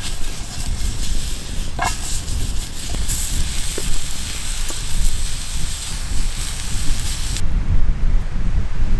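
Food sizzling in a pot over a wood fire: a steady hiss that cuts off suddenly near the end. A constant low rumble runs underneath.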